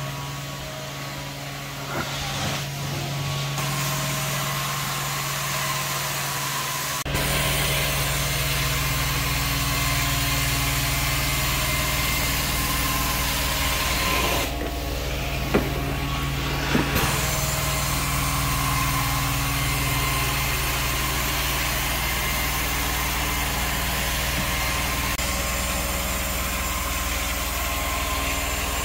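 Hot-water extraction carpet cleaning machine running steadily, its motor humming under the hiss of the wand's suction and spray passing over the carpet. The sound shifts abruptly a couple of times, with two sharp clicks about halfway through.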